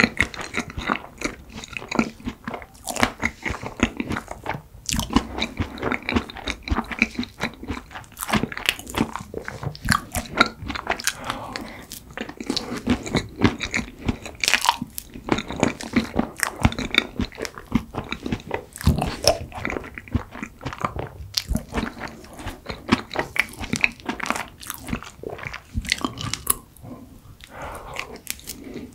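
Close-miked eating of mint chocolate ice cream cake: wet chewing and lip smacks in quick irregular clicks, with a plastic fork digging into the cake.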